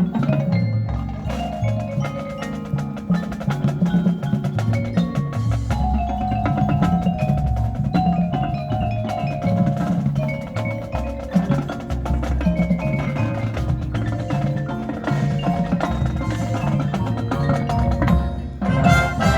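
High school marching band music led by the front-ensemble mallet percussion: marimbas and bells play a rhythmic passage over repeated low pitched notes, with many short clicks. The sound drops away briefly near the end.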